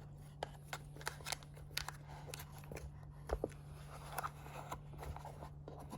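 Scattered light clicks, taps and rustles of a watch box and its paper packaging being handled and closed up, over a low steady hum.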